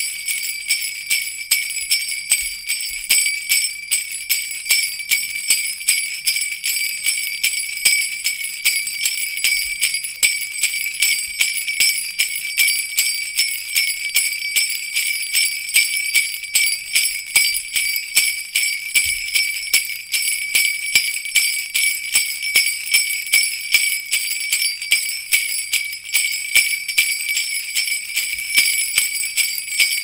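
Sleigh bells jingling continuously in an even shaking rhythm of about two pulses a second, the harness-bell sound of Santa's reindeer.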